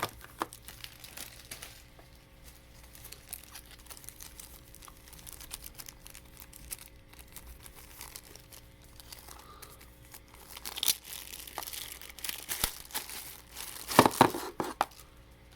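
Toy packaging crinkling and rustling as it is handled and unwrapped, with some tearing; the handling gets louder and busier in the last few seconds.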